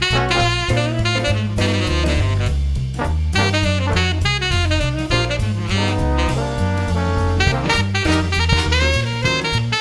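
Background music: an upbeat jazz tune led by saxophone, with walking bass and drum kit keeping a steady swing beat.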